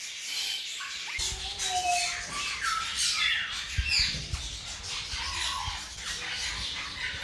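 Many aviary parrots squawking and chirping at once, short overlapping calls with rising and falling pitch. A low rumble sets in about a second in.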